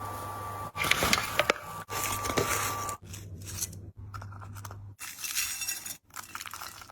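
Close-up eating sounds: biting and crunching food, with scraping, in short segments that start and stop abruptly over a steady low hum.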